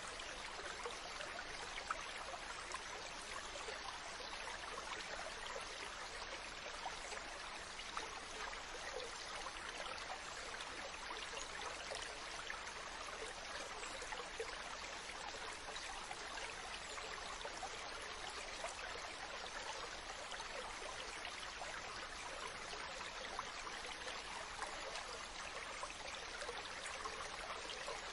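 Mountain stream running over rocks: steady, even burble and splashing of flowing water.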